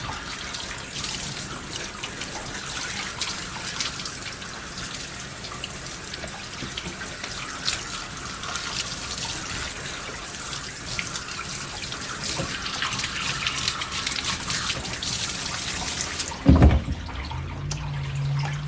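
Water spraying from a grooming tub's hand sprayer and splashing over a dog's wet coat, a steady spattering hiss that cuts off suddenly near the end. A loud low thump follows the cutoff.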